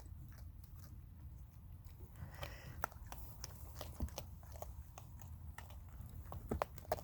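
Raccoons chewing and crunching hard dry food: a faint, irregular scatter of small crunches and clicks.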